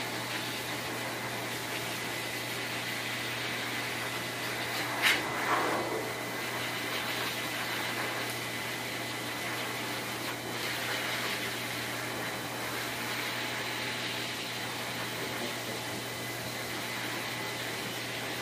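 Pet grooming blower dryer running steadily, air rushing out of its hose as an even hiss over a low hum. A single sharp click about five seconds in.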